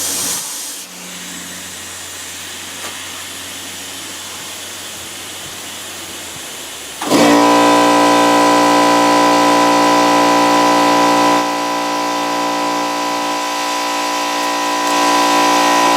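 A steady hiss of air. About seven seconds in, a machine motor starts abruptly and runs loudly with a steady, even hum, dipping slightly in level partway through.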